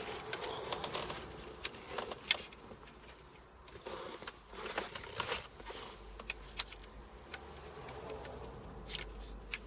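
Scattered light clicks and short scraping rustles of plastic dashboard parts being handled and fitted back around the clock, over a faint steady low hum.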